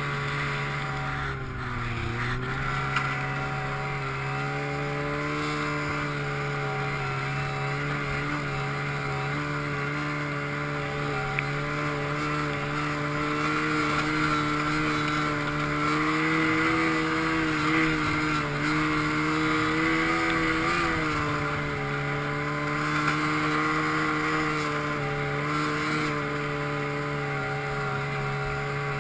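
Snowmobile engine running under way. Its pitch dips briefly about two seconds in, then holds fairly steady with small rises and falls.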